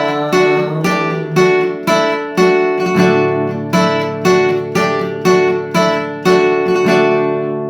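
Acoustic guitar strumming chords at about two strokes a second. The last chord rings out and fades near the end.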